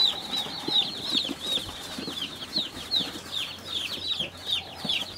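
A boxful of day-old Meat King broiler chicks peeping without pause: many short, high peeps that slide downward, overlapping several a second. Light bumps and rustling from the cardboard box come through underneath as the chicks are handled.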